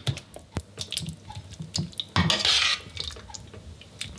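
Chunky vegetable tomato sauce being spooned over a lasagne layer: wet splats and squelches with repeated clicks and knocks of the spoon against the pot and baking dish, and a longer wet scraping burst a little past halfway.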